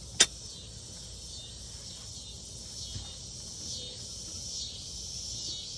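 Cicadas buzzing steadily, the sound swelling and easing slowly, with a single sharp click just after the start.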